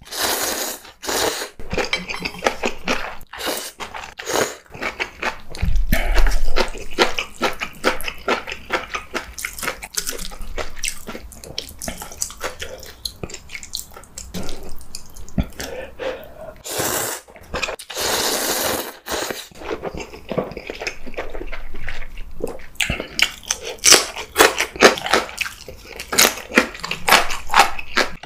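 Instant noodles being slurped and chewed: wet slurps and smacking chews, with long slurps just after the start and again about two thirds of the way through.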